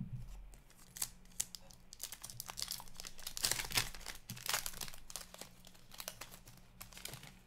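Foil wrapper of an Upper Deck Extended Series hockey card pack torn open and crinkled as the cards are slid out, loudest in the middle. A few light clicks of the packs being handled come first.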